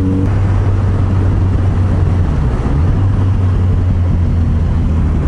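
Kawasaki Z900RS inline-four engine running under way at a steady pace, a low even drone, with wind rushing over the microphone. A higher engine note drops away shortly after the start.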